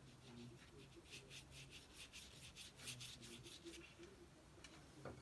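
Watercolour brush rubbing short strokes across watercolour paper: a faint scratching at about four strokes a second that stops after a few seconds.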